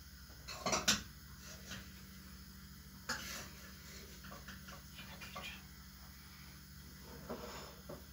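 A few scattered clinks and clatters of dishes and utensils being handled in a kitchen, the loudest about a second in, over a steady low hum.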